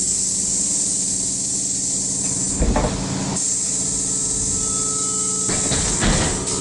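Interior of a trolleybus standing still: steady hum from its electrical equipment under a high hiss, with a couple of short knocks. Near the end a motor whine sets in as it begins to move off.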